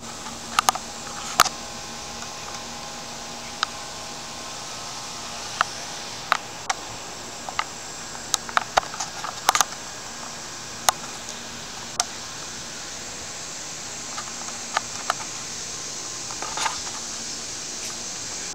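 Camcorder handling noise: scattered sharp clicks and taps as the camera is moved, over a steady hiss.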